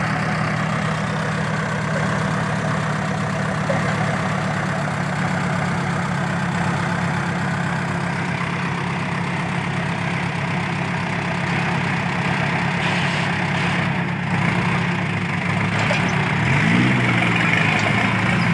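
Engine of a homemade farm truck idling steadily, a little louder in the last couple of seconds as the tow chain is pulled tight.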